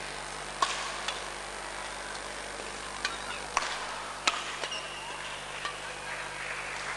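Badminton rally: a shuttlecock struck back and forth by rackets in sharp smacks at irregular intervals, six or seven in all, with a brief shoe squeak on the court floor about five seconds in. A murmur of voices runs under it.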